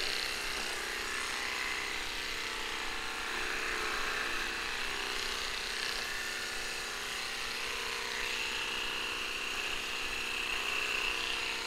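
Cordless electric pet clippers running with a steady buzz while trimming a small dog's fur. A higher whine grows stronger in the last few seconds.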